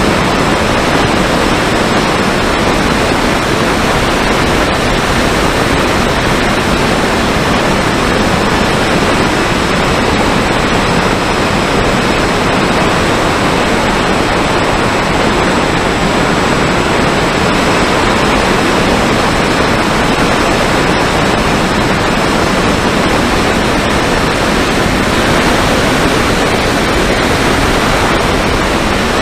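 Steady rush of wind and propeller noise picked up by the onboard camera of a Mini Talon FPV plane in flight, with a faint, steady high whine from its electric motor.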